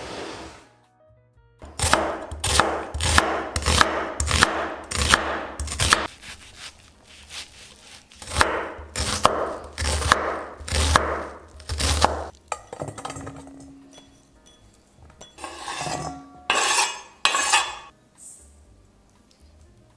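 Chef's knife chopping onion on a bamboo cutting board: rapid, evenly spaced knocks of the blade on the wood, in two runs. Near the end there are a few shorter scraping, rustling sounds.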